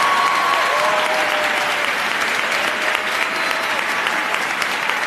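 Audience applauding as a marimba piece ends, with a few long cheering calls above the clapping in the first few seconds.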